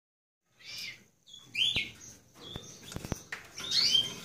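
Canaries chirping in a string of short, high, sliding calls, with four sharp clicks in between.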